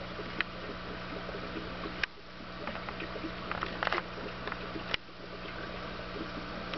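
Aquarium air pump humming steadily and an air-stone bubble curtain bubbling, with a few sharp clicks, the clearest about two and five seconds in.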